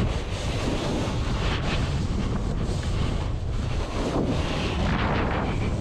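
Wind buffeting the microphone of a helmet or chest camera riding downhill, over the hiss of a Jones Hovercraft splitboard sliding and turning through snow, the hiss swelling and fading every second or so.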